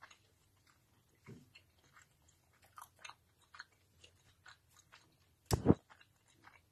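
Someone chewing gum close to the microphone: soft, irregular mouth clicks and crunches. One louder knock about five and a half seconds in.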